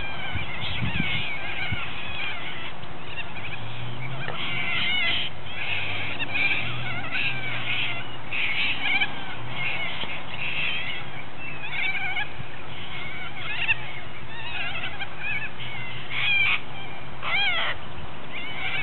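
A flock of little corellas calling: many harsh, wavering screeches and squawks overlapping, with a few louder screeches near the end.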